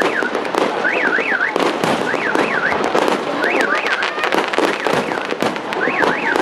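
Fireworks going off in a dense run of bangs and crackles. Through them a car alarm sounds, a warbling siren that sweeps up and down in short repeated bursts.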